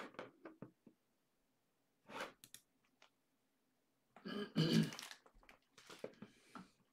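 A man clearing his throat, the loudest at just under five seconds in, with a few faint clicks near the start.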